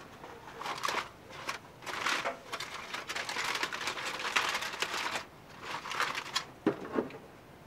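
Aluminium foil crinkling and rustling in irregular bursts as foil-wrapped racks of smoked ribs are pulled open by hand.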